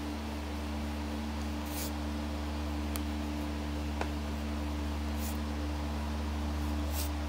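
Steady low electrical hum, with three short scratchy strokes of a pen nib on paper: one about two seconds in, one past the middle and one near the end, plus a couple of faint clicks.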